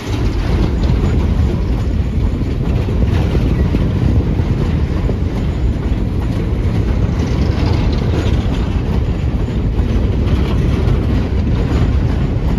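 Loaded coal cars of a freight train rolling past, a steady low rumble with wheels clattering over the rail.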